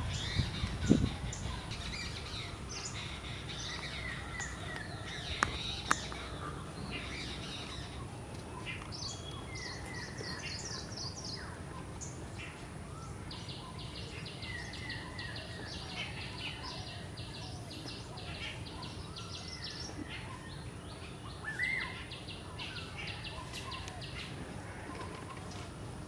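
Many wild birds chirping and calling over one another, with a fast trill of rapidly repeated notes from about thirteen to nineteen seconds in. A few sharp clicks stand out about a second in and again near six seconds in.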